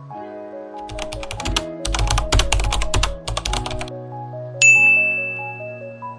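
Background music with a rapid run of keyboard-typing clicks lasting about three seconds. Then a single bright ding rings out and slowly fades.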